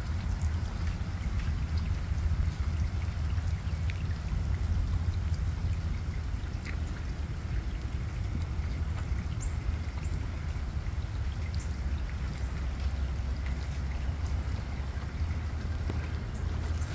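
Rain and runoff trickling over a flooded, waterlogged yard, with scattered drip ticks and a steady low rumble underneath.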